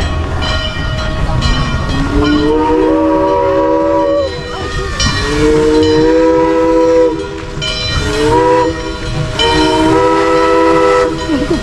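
Steam locomotive whistle blowing a chord in four blasts: long, long, short, long, the signal a train gives when approaching a crossing.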